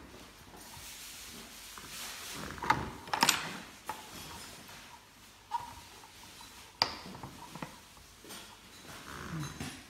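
Plastic parts of a manual meat grinder being handled and fitted together: a series of sharp plastic clicks and knocks, the loudest about three seconds in and again near seven seconds, with light handling rustle between.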